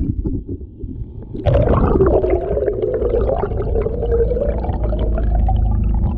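Honda GX50 four-stroke outboard and its propeller heard underwater: a muffled, droning hum over a low rumble. It falls away for about a second near the start, then cuts back in suddenly and slowly climbs in pitch.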